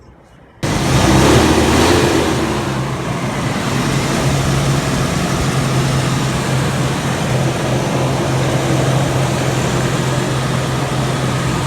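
1976 Oldsmobile Omega's V8 engine running on fresh oil after an oil change. It comes in suddenly about half a second in, is loudest for the next second or so, then settles to a steady idle.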